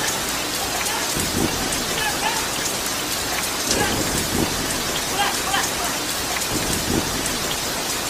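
Heavy rain pouring steadily onto wet, puddled pavement.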